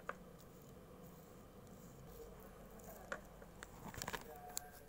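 Paintbrush dabbing thick paint onto bubble wrap and knocking against the rim of a plastic paint tub: faint scattered clicks and taps, bunched together about three to four and a half seconds in.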